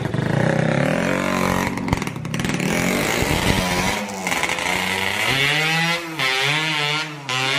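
Yamaha RX-King 135cc two-stroke motorcycle engine being ridden and revved. Its pitch climbs over the first few seconds, then rises and falls several times in the second half.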